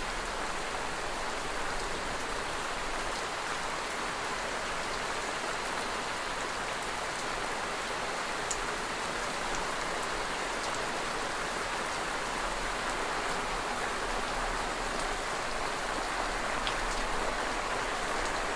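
Steady rain falling, an even hiss with a few faint separate drop ticks; no thunder is heard.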